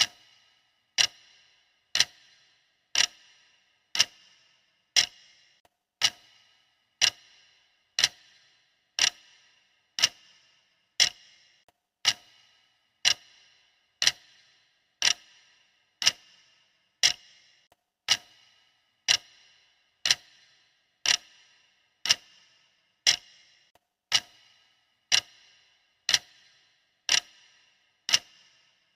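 Clock ticking steadily, one sharp tick each second, each tick dying away quickly.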